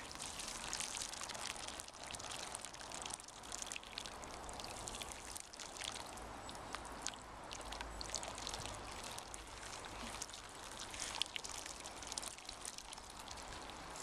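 Hot water pouring steadily from an electric kettle onto the frozen surface of a stone bird bath, a continuous trickle with many small splashes, to thaw the ice.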